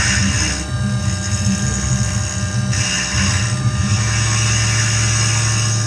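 Tormach 440 CNC mill cutting a pine workpiece: the spindle and motors hum steadily while the cutter's hiss comes and goes in several spells as it engages the wood, the longest over the last two seconds.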